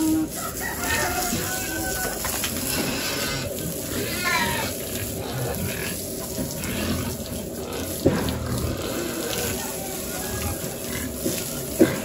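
Water spraying steadily from a garden-hose nozzle onto young pigs in a pen, with the pigs giving short squeals now and then. There is a sharp knock about two-thirds of the way through and another near the end.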